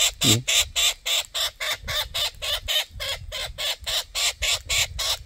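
Young Australian king parrot begging: a fast, unbroken run of short, even calls, about five a second, really loud. It is a juvenile's food call, asking its parents to feed it.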